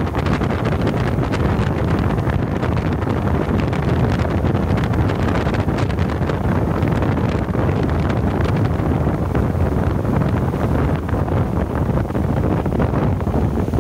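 Wind buffeting the microphone over the steady run of a Honda BF100 four-stroke outboard driving a boat at speed, with water rushing in the wake. The sound is a dense, even low rumble with no change in engine speed.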